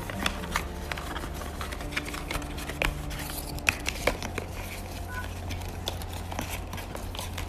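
Irregular small clicks and taps of a Samsung Galaxy A72 and its SIM eject pin being handled while the edges are felt for the SIM tray, over a steady low hum.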